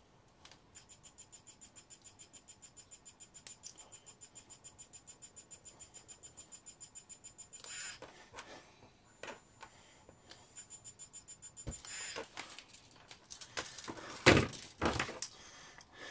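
3D pen's filament feed motor running at a low speed setting: a fast, even ticking with a faint high whine, in two runs of about seven and three seconds. Near the end come a few handling clicks and one sharp clack, the loudest sound.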